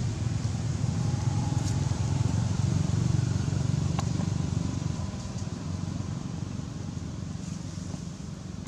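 Low, steady rumble of an engine running, easing off over the last few seconds, with a faint click about four seconds in.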